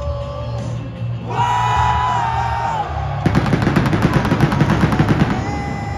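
Loud arena entrance music with singing. About three seconds in, a rapid crackling run of pyrotechnic bangs from the stage fountains and fireworks joins it and lasts about two seconds.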